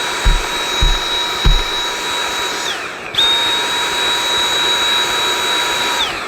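A vacuum cleaner running with a high motor whine while it sucks dust out of a robot vacuum's bin part. It is switched off about two and a half seconds in, its whine falling as it winds down, is switched back on half a second later, and winds down again near the end. Three dull knocks come in the first second and a half.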